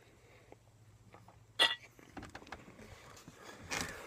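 Handling noise from a phone camera being moved and propped up in a vehicle cab: a sharp clack about a second and a half in, then a few light knocks, over a faint steady low hum.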